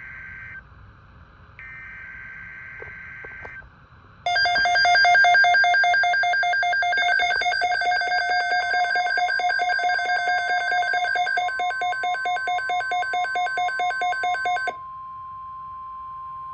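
Emergency Alert System weather-radio alert. It opens with two short screeching data bursts of the digital alert header. About four seconds in, a loud, rapidly pulsing electronic alarm starts. Partway through, a steady single-pitch warning tone near 1 kHz joins it and carries on after the pulsing alarm cuts off near the end.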